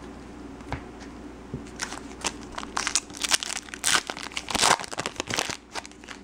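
Trading-card pack wrapper being torn open and crinkled by hand: an irregular run of sharp crackles starting about two seconds in and stopping shortly before the end.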